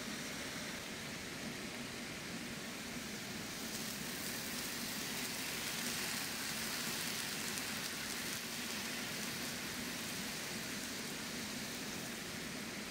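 Chicken frying in a pan with a steady sizzle. About three and a half seconds in, water poured from a kettle into the hot pan makes the sizzle louder and hissier for several seconds, easing off near the end.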